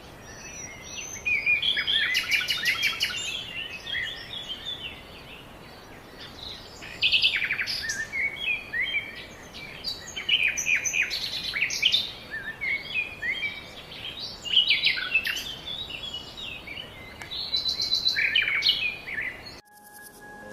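Several birds singing and chirping together: quick overlapping chirps and short trills, coming in bursts every few seconds. The sound cuts off suddenly near the end.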